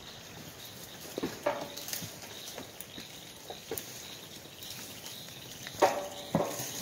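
Goats browsing a leafy branch, the leaves rustling and twigs clicking as they pull at them. A short goat bleat comes about a second in, and two louder bleats near the end.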